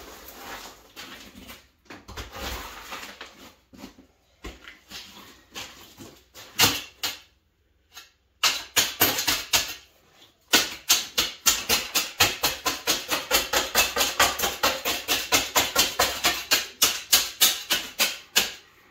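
Loose gravel being poked and tamped down around a sump basin. First comes some irregular scraping and crunching of stone. Then, after about eight seconds, a steady run of quick sharp strikes, about five a second, lasts almost to the end.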